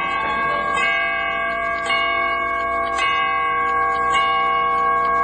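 A bell tolling: a fresh stroke about once a second, each ringing on under the next so the tone never dies away.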